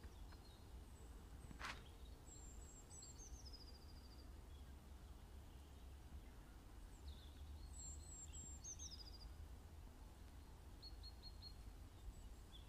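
Faint songbird song: two short high phrases, each ending in a falling trill, about two seconds in and again about seven seconds in, and a few quick high chips near the end. Under it runs a low steady rumble, and there is a single sharp click about two seconds in.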